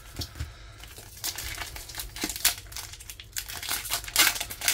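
Foil wrapper of a Pokémon Scarlet & Violet booster pack being handled, a run of small crackles, then torn open across the top, with the loudest ripping about four seconds in.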